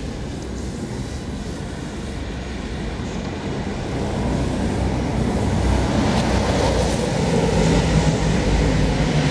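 Honda VT125 Shadow's small V-twin engine idling steadily. It grows louder from about halfway through.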